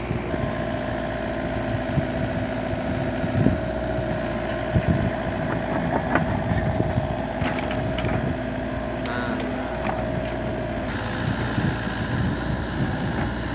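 LiuGong mini excavator's diesel engine running steadily under work, with a high steady whine that stops about eleven seconds in and scattered short knocks.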